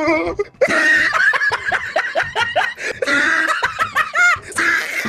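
Laughter: a run of quick, high-pitched laughs, several a second, with a short rising-and-falling vocal cry near the end.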